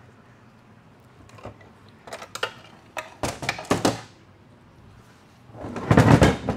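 Metal transmission parts knocking and clattering as they are handled on a workbench: a few sharp knocks and short rattles about two to four seconds in, then a louder burst of clatter near the end.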